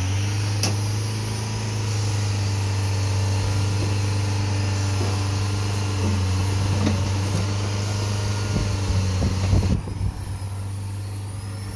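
Komatsu PC40 mini excavator's diesel engine running steadily while the machine is worked on its tracks and arm, a low hum throughout. A few sharp knocks sound about nine to ten seconds in.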